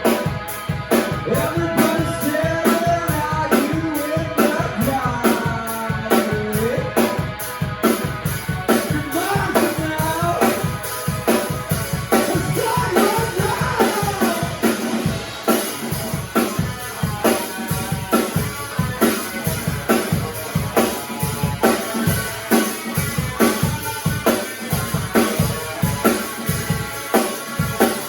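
Rock music: a voice singing over guitar and a drum kit, the singing dropping out about halfway through and leaving a steady drum beat.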